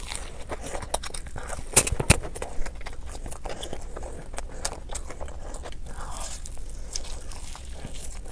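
Close-miked eating of a cheese-sauced fried chicken piece: crunchy bites into the crispy coating and wet chewing, with two loud sharp crunches close together about two seconds in.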